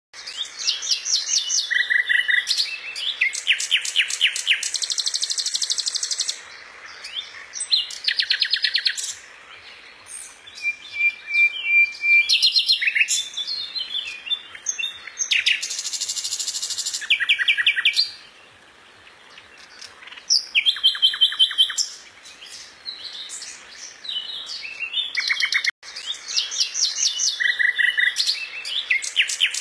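A finch singing: long, varied phrases of rapid trills and quickly repeated high notes, broken by short pauses, with a held whistled note about eleven seconds in.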